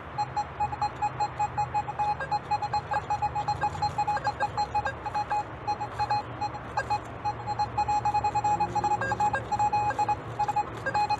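Metal detector pinpointer beeping rapidly at one steady pitch, several beeps a second, signalling a buried target close by. Faint scraping clicks of digging sound alongside.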